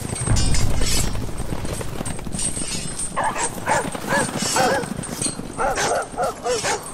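Footsteps scuffing down a steep dirt trail, with wind rumbling on the microphone. From about three seconds in, a run of short, wavering high-pitched calls joins in, several a second.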